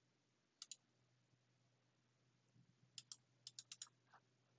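Faint computer mouse clicks: two quick clicks about half a second in, then a quick run of about six clicks around three to four seconds in.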